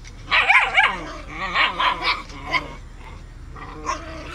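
Puppy barking while squabbling with a littermate. A loud flurry of high barks with rising and falling pitch comes in the first second, then a string of shorter barks, and one more bark near the end.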